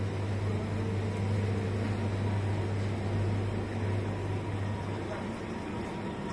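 Steady low hum of a supermarket's open refrigerated display cases and air conditioning.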